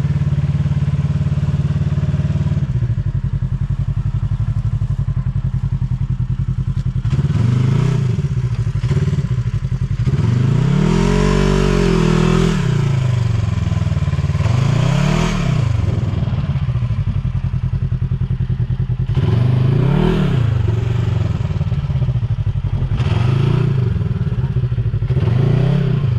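Polaris RZR 1000's parallel-twin engine idling, then revved up and down several times in a row. The biggest rev comes about eleven seconds in.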